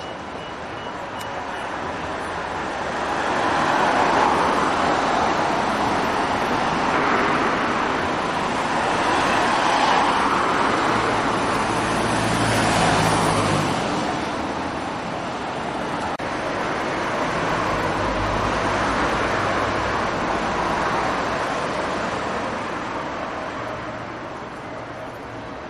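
Road traffic passing on a city street: a continuous noise of tyres and engines that swells and fades several times as vehicles go by, with a deeper engine rumble now and then.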